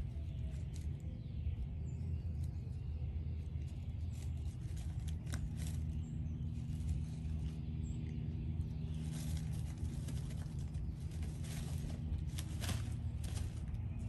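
A puppy's paws scratching and rustling in dry pine needles on top of plastic-wrapped pine-straw bales: scattered crackles and scrapes, busier from about halfway through, over a steady low hum.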